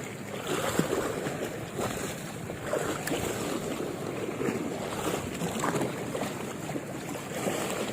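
Sea water washing and lapping along the shore, with wind buffeting the microphone.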